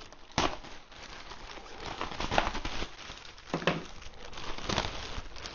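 Large plastic packaging bag crinkling and rustling as it is pulled and worked open around foam packing, with several sharp crackles.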